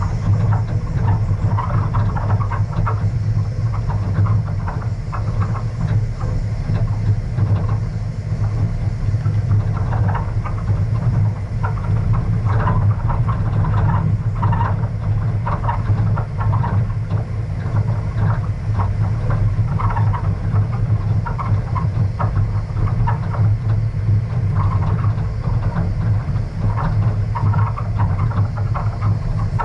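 A vehicle driving along a gravel dirt road: a steady low engine drone with constant irregular rattling and crunching from the stony surface.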